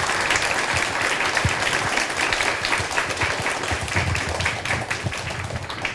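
An audience clapping in applause, a steady patter of many hands that fades away near the end.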